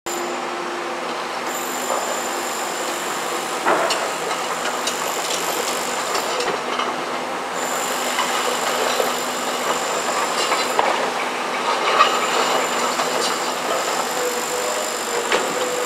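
Komatsu PC210LC tracked excavator working gravel: its engine and hydraulics run steadily, with a high thin whine that comes and goes every few seconds and a few sharp knocks of steel and stone.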